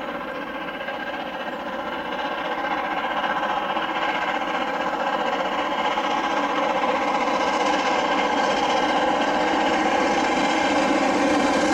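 Steam locomotive's whistle held in one long, unbroken blast as the train approaches, growing steadily louder.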